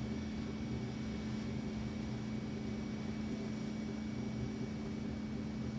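Steady drone of the 2020 Moomba Max wake boat's inboard engine pulling at surf speed, with the rush of its churning wake.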